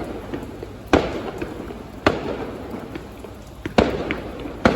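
Fireworks display: four sharp bangs of shells bursting overhead at uneven intervals, each trailing off briefly.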